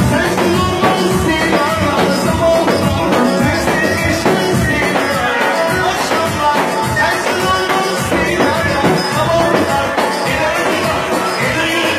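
Live Turkish folk dance music (a Devrek oyun havası) played on an arranger keyboard over a steady, even drum beat, with a singer on a microphone.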